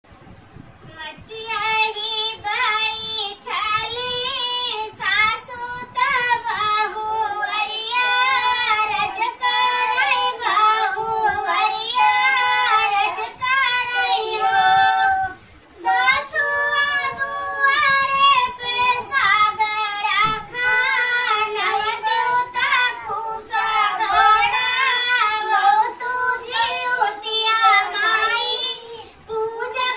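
A solo high voice sings a Bhojpuri Jitiya folk song (a sohar-style lokgeet) in long melodic phrases, with a short break about halfway through.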